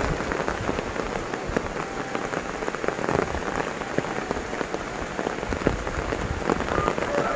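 Heavy rain falling steadily on leafy vegetation and flooded rice paddies, a continuous hiss with many individual drops ticking through it.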